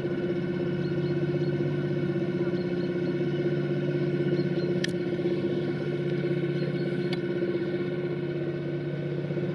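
Steady hum of a 060-EA (LE 5100 kW) electric locomotive, several even tones held unchanged, with two faint clicks around the middle.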